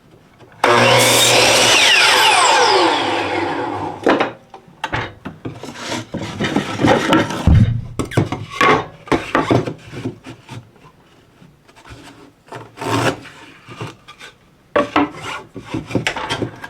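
A power saw cuts through a cedar fence picket a little under a second in, its whine falling in pitch over about two seconds as the blade slows, followed by scattered knocks and rubbing of the wood boards being handled.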